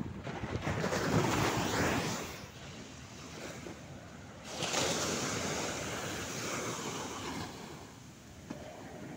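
Small waves breaking and washing up a sandy beach in two surges, one about a second in and another just before the halfway mark, each fading as the water runs back.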